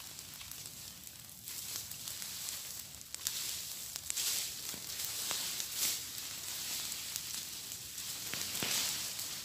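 Dry leaves and cut bush burning, with a steady hissing crackle and scattered sharp pops that grow a little louder after about three seconds. This is a bush-clearing burn of leaf litter on a farm plot.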